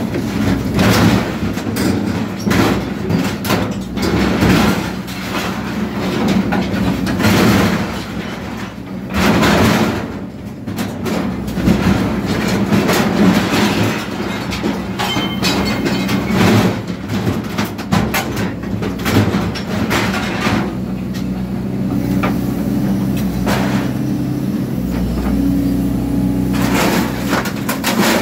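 Excavator's hydraulic shear chopping steel roo bars in a scrap bin: repeated sharp metal crunches and clanks over the steady drone of the diesel engine and hydraulics. The cutting thins out after about twenty seconds, leaving the machine running with a steady hum.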